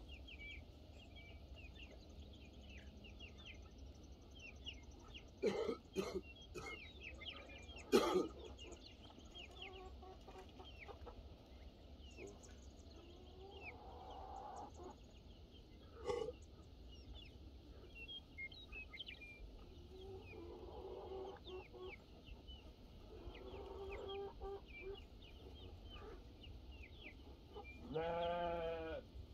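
Farmyard animals: chickens clucking and chirping throughout, a few sharp knocks, and one long bleat near the end.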